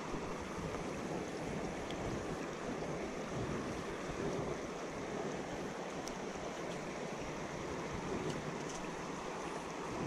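Shallow mountain creek rushing steadily over rocks and riffles.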